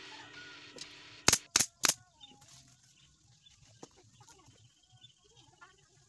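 Pneumatic nail gun firing three quick shots, each about a third of a second apart, about a second in.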